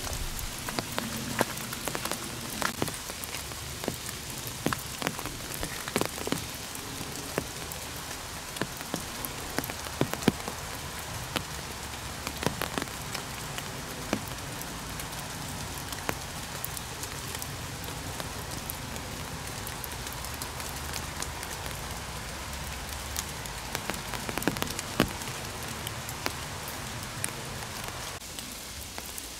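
Steady rain falling on forest leaves: a constant patter, with scattered sharp clicks from single drops landing close by.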